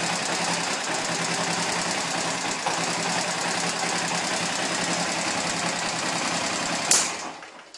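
Honda Eco 100 motorcycle's small single-cylinder four-stroke engine idling steadily. Near the end a sharp click, then the engine sound dies away within about a second.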